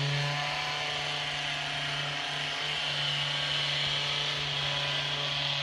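Handheld electric vibration therapy instrument running steadily with a low, even hum, held against the calf muscle.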